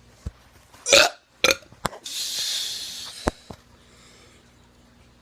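A teenager's short, abrupt forced burp about a second in, followed by a smaller one half a second later, then about a second of breathy hiss, with a couple of sharp clicks.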